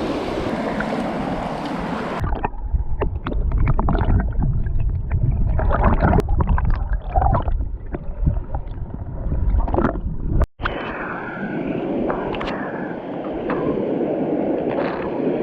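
Water sloshing and gurgling, mixed with heavy low rumble and many short knocks of wind and handling on the microphone. The sound changes abruptly about two seconds in and breaks off briefly near the end, as at edit cuts.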